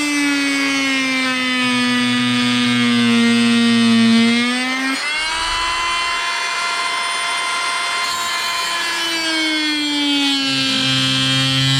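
Harbor Freight oscillating multi-tool with a wood-and-metal blade cutting into onyx: a steady buzzing whine that drops in pitch as the blade bogs down in the cut, jumps back up about five seconds in as the pressure eases, and sags again near the end.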